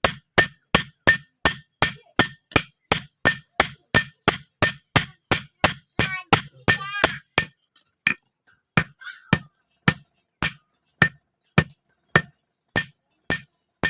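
Blacksmith's hand hammer striking a steel rod on an anvil while forging a sickle: steady ringing blows about three a second, slowing to a blow every half second or so about halfway through.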